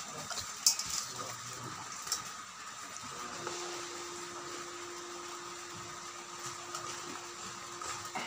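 Hands rubbing and handling salted raw pork in a stainless steel bowl, with a couple of light knocks against the bowl in the first two seconds. A steady low hum starts about three seconds in.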